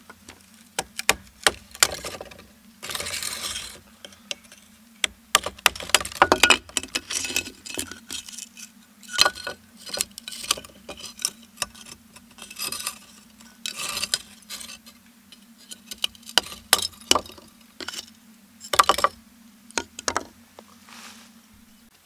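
A folding knife being batoned through a charred log with a piece of board: irregular sharp knocks of wood striking the blade, cracking and scraping as the charred wood splits, and pieces knocking onto wooden boards. A faint steady hum runs underneath.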